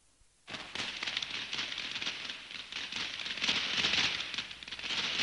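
Dense, continuous crackling and popping that starts about half a second in and grows louder toward the end.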